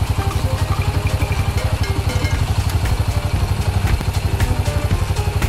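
An engine idling steadily, with a low rumble and a fast, even pulse.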